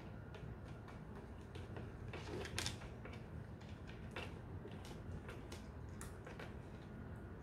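Scattered light clicks and taps of cats pawing dry kibble about in a plastic food puzzle feeder, with a quick run of louder clicks about two and a half seconds in.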